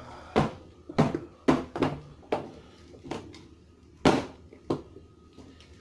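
Plastic wrestling action figures knocked and slammed against a toy wrestling ring's mat and ropes: about eight irregular thumps and clacks, the loudest about four seconds in.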